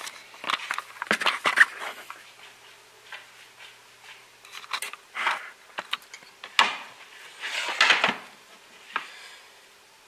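Handling noises at a kitchen counter: short knocks, clicks, scrapes and rustles at irregular intervals, as the camera is moved and set down and things on the counter are handled. The louder clusters come about a second and a half in, about six and a half seconds in and around eight seconds in, over a faint steady hum.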